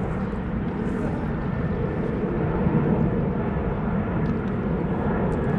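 Radio-controlled racing boats' small two-stroke engines buzzing steadily as they run on the water, swelling a little about halfway through.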